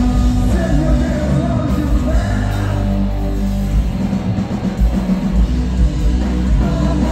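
Live metalcore band playing at full volume: distorted guitars, bass and drums, with a vocalist singing and yelling over them.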